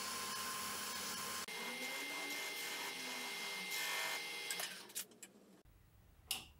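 Wood lathe running while a turning tool cuts the foot of a spinning itín-wood bowl, a steady scraping hiss over the lathe's hum. About five seconds in the sound fades away, followed by a soft tap near the end.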